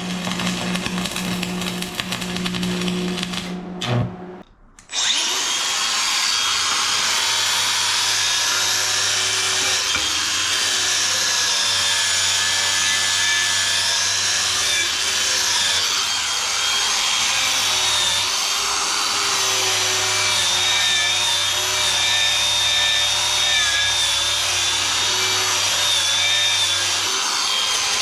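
Stick-welding arc on steel, a steady crackling hiss as a rod burns. It cuts out briefly about four seconds in, then is struck again and runs on.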